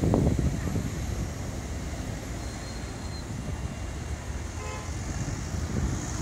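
Steady city street traffic noise: motor vehicles running and passing, with a louder low rumble for a moment at the start.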